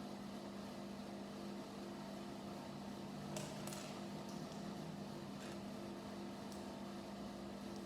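A steady low machine hum with a faintly pulsing tone above it, and a few soft clicks of plastic Lego pieces being handled, about halfway through and again later.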